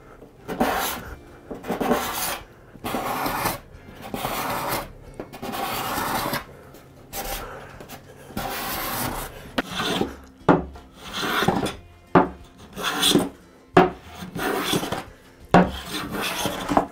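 Card scraper scraping a red oak tabletop in repeated rasping strokes, about one a second. From about ten seconds in the strokes are shorter and sharper.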